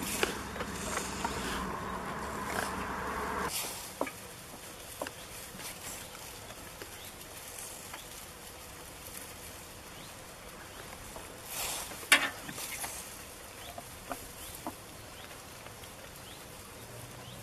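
Goats pulling and chewing dry hay from a heap, a rustling with scattered small crunchy clicks and one louder rustle about twelve seconds in. A steady low hum runs underneath for the first three and a half seconds and stops suddenly.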